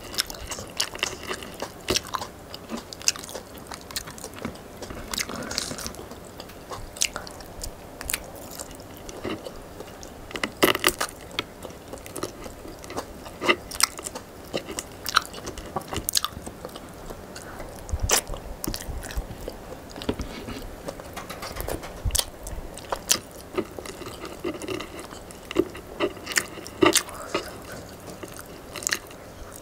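A person chewing food while eating by hand, with irregular wet clicks and smacks throughout.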